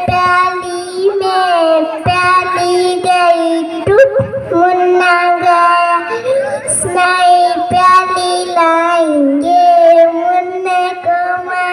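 A young girl singing a Hindi nursery rhyme into a handheld microphone, in long drawn-out notes with short breaks between the lines.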